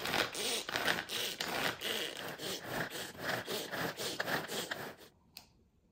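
Kuhn Rikon hand-powered pull-cord food chopper chopping scallions, cilantro and garlic: a rapid rhythmic whirring and scraping, about three strokes a second, as the cord is pulled again and again. It stops about five seconds in, and a single click follows.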